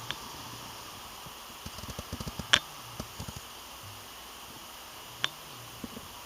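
Scattered sharp clicks and taps over a steady hiss: a quick cluster about two seconds in, one louder click just after it, and a few more later.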